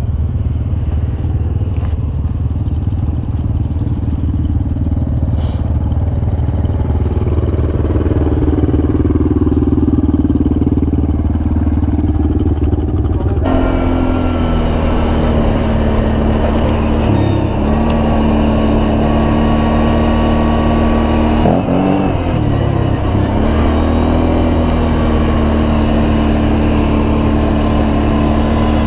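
Kawasaki Brute Force ATV's V-twin engine running as it is ridden along a gravel trail. It is quieter at first, with another engine swelling and fading, then about halfway through it steps up to a louder steady drone, with a brief dip in revs and recovery about two-thirds of the way in.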